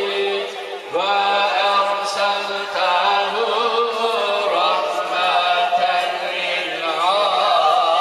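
A male voice chanting Turkish Islamic devotional verse, drawing out long, ornamented held notes; it dips briefly about a second in.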